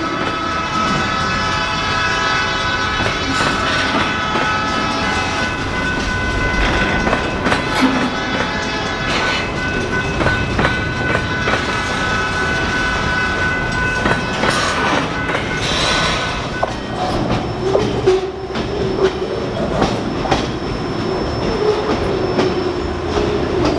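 Freight train of covered hoppers and boxcars rolling past close by, wheels clicking over the rail joints with a steady rumble. A set of steady high tones rides over the wheel noise for about the first two-thirds, then fades, and a lower steady tone comes in near the end.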